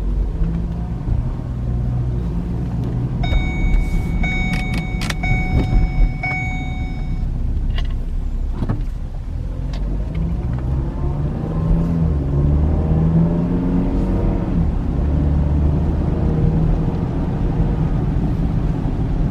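2010 Ford Fusion being driven, heard from inside the cabin: a steady engine and road rumble, with the engine pitch rising as the car speeds up about ten seconds in. A quick run of clicks with a ringing tone comes about four to seven seconds in.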